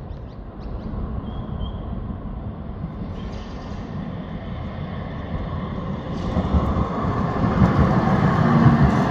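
Steady low rumbling outdoor noise, growing louder from about six seconds in.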